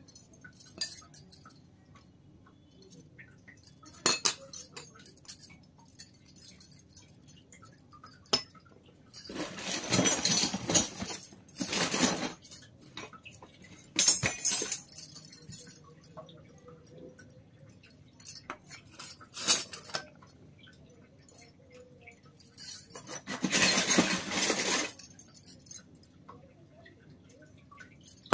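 Miniature stainless-steel toy kitchen utensils clinking and tapping as they are handled and set down on a wooden table, in scattered light clicks. There are a few longer stretches of handling noise, around the middle and again near the end.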